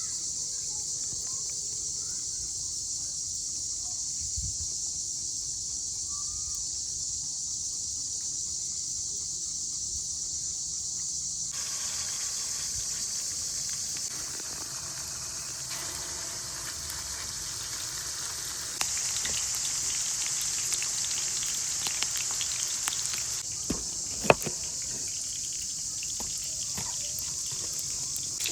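Forest ambience carried by a steady, high-pitched insect drone, with a few faint bird chirps during the first part. The background changes abruptly several times, and a single sharp click comes about 24 seconds in.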